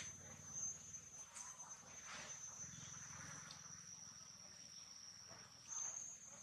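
Insects droning: one steady, high-pitched whine that steps up slightly in pitch and gets a little louder near the end, with a few faint short sounds beneath it.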